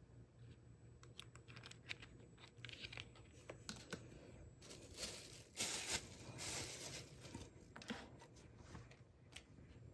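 Clear plastic bags crinkling and rustling as they are pulled off two acrylic crystal table lamps, loudest about five to seven seconds in. Light clicks and taps of handling come before it.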